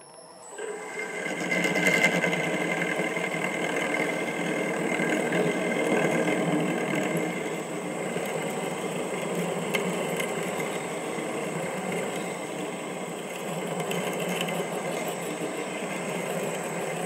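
MN-80 metal lathe running, its chuck spinning while a twist drill fed from the tailstock bores a tap-drill hole into a steel hex bar. It is a steady machine running sound with a faint high whine that is strongest in the first several seconds.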